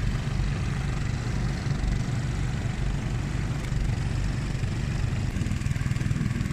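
A passing boat's engine running steadily, a low, even drone with a fast pulse.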